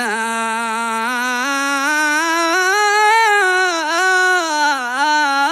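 A man singing one long, drawn-out note of a Tihami-style mawlid praise song, solo with no instruments heard; his voice climbs to a peak about three seconds in, then falls back with wavering ornaments.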